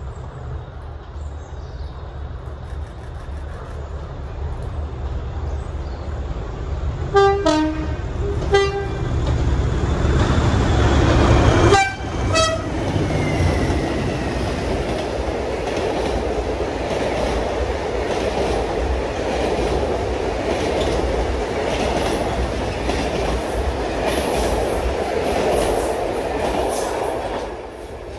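A loaded freight train hauled by two diesel locomotives passes close by: the engine rumble builds, the lead locomotive gives short two-tone horn blasts twice and then twice more as the engines go by at their loudest, and the long train of wagons laden with logs follows with a steady rumble and clickety-clack of wheels on rail joints, falling away near the end.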